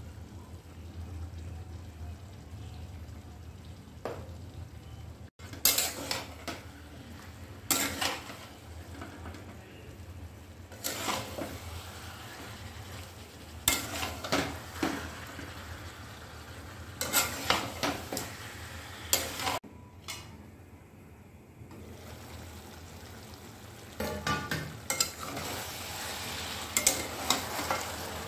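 A metal spatula stirring and turning chicken pieces in a metal kadhai, scraping and clattering against the pan in repeated bouts that start about five seconds in. Under the strokes the chicken sizzles faintly as it fries with its spices.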